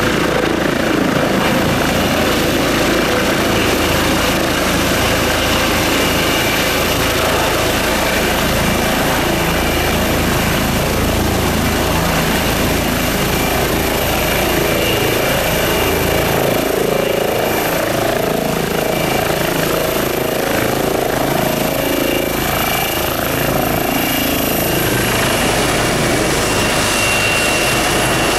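Eurocopter EC135 helicopter hovering low and setting down on its skids: steady turbine whine over the rushing beat of the rotor. Near the end the highest whine dips slightly in pitch.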